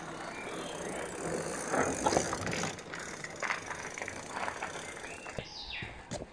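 Fat-tyre bicycle coasting past with its rear freewheel ticking and tyre noise on the road surface, with a short falling squeal near the end.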